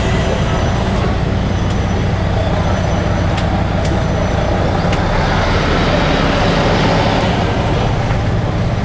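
Sentosa Beach Tram, an articulated road tram, driving along: a steady low engine rumble with road noise, heard from the open-sided rear carriage, with a few light ticks.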